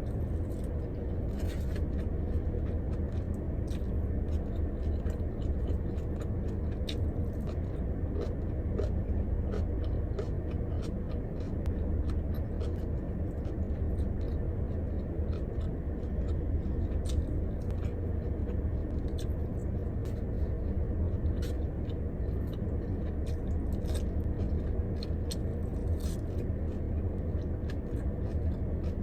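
A person chewing and biting food close to the microphone, with scattered small clicks and crunches, over a steady low rumble in a car's cabin.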